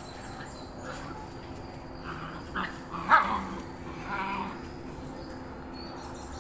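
Puppies play-fighting, giving a few short barks and yelps between about two and four and a half seconds in, the loudest about three seconds in.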